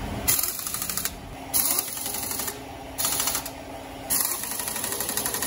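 Cordless impact wrench on a long extension, hammering in four short bursts as it runs down the exhaust manifold bolts on an Isuzu 4HK1 diesel engine.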